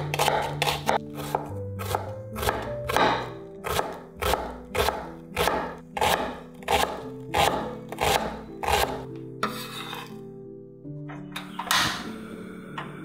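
Chef's knife chopping an onion on a wooden end-grain cutting board: steady knocks about two a second, stopping about nine seconds in, over background music. Near the end a portable gas stove burner is lit.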